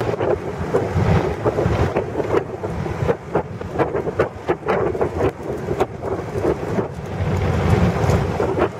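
Wind buffeting the microphone over the rumble of a moving vehicle, with frequent small knocks and rattles from the ride.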